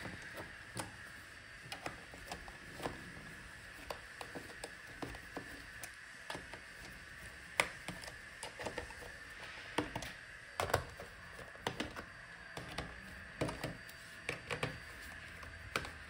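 Faint, irregular clicks and taps of a precision screwdriver turning the bottom-case screws of a Lenovo ThinkPad E14 Gen 2 laptop and knocking against its plastic case.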